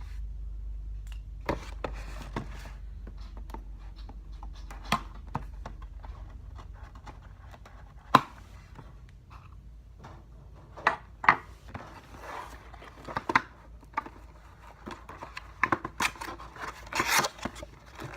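A toy blaster's cardboard box being opened by hand: scattered sharp clicks and taps, with bouts of rustling and scraping of the packaging that grow busier toward the end.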